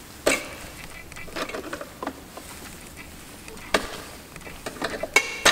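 Scattered clicks and light metal knocks as a dB killer baffle is worked out of a motorcycle's stock exhaust silencer, with a sharper ringing clink near the end.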